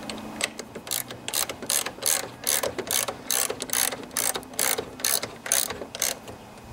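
Hand socket ratchet clicking in quick runs of several clicks a second while it tightens the steering wheel's retaining nut on a riding mower's steering shaft. The nut is being cinched down to stop the wheel, whose gear teeth are stripped, from slipping.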